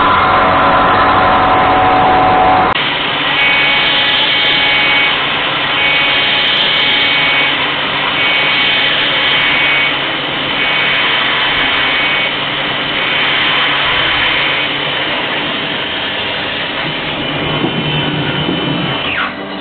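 A UDM-2216 three-axis CNC machining center milling a large metal plate, with steady cutting noise and a whine. About three seconds in the sound turns lighter, with a high whine that pulses on and off about once a second. Near the end there is a falling whine.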